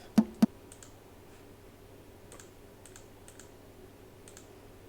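Two short percussion-sample hits a quarter of a second apart at the start, auditioned after high-pass filtering, then scattered faint clicks of someone working the computer.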